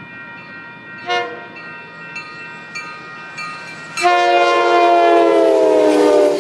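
Horn of an approaching Coaster commuter train: a short blast about a second in, then a long, loud multi-note blast from about four seconds in whose pitch slides slightly lower as the train draws near and passes.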